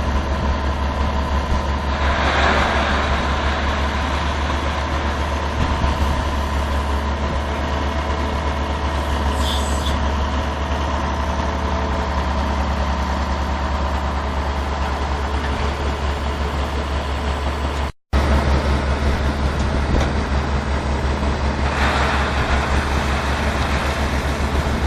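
Heavy machine's engine running steadily with a deep, fast-pulsing rumble. There are short bursts of hissing about two seconds in and again near the end, and a momentary break about two-thirds of the way through.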